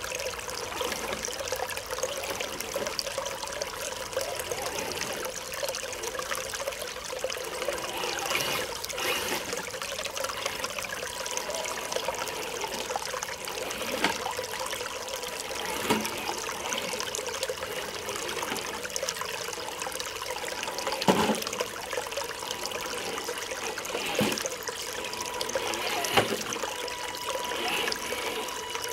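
Shallow rocky stream trickling steadily while an Axial SCX10 II RC crawler drives through the water, with a handful of short sharp knocks as its tyres and chassis strike the stones.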